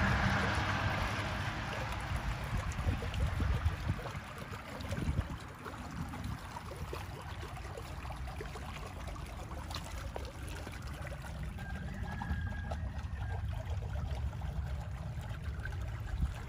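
Water trickling and splashing into a garden pond, loudest at first and easing after a few seconds, over a steady low rumble.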